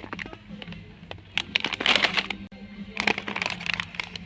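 Bursts of crinkling and crackling with sharp clicks from crunchy snacks being handled, in two main bursts about a second and a half and three seconds in, over a low steady hum.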